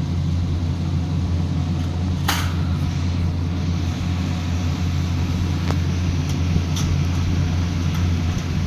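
A steady low hum, like a motor or fan running, with a few short faint clicks or chirps over it, the clearest about two seconds in.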